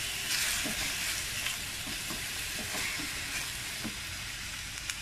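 Pork and onions sizzling as they sauté in a stainless steel wok, with a spatula stirring and scraping against the pan now and then.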